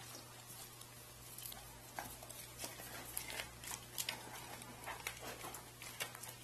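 Dog chewing and crunching frozen raw chicken: irregular sharp cracks and clicks as its teeth work at the frozen meat.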